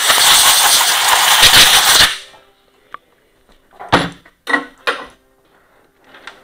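Compressed air hissing loudly as it blows dust and debris off a Stihl MS-391 chainsaw's powerhead around the clutch drum, cutting off about two seconds in. Then come about four sharp metal clanks as the saw's bar and chain are handled on a workbench.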